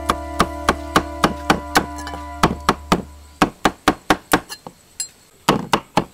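A cleaver chopping boiled pig offal on a wooden chopping block: quick, even knocks at about four a second, with a short pause around five seconds in before the chopping resumes. Background music fades out in the first half.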